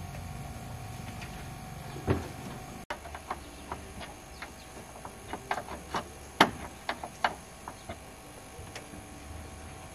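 Hands working at a truck's plastic dashboard trim: a single thump about two seconds in, then a run of irregular sharp clicks and taps, the loudest a little past the middle.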